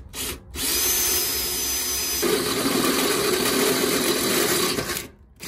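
Electric drill boring a hole through a steel trailer-frame I-beam: two short trigger pulls, then a steady run of about four seconds. About two seconds into the run the sound grows heavier as the bit bites into the metal, and it stops shortly before the end.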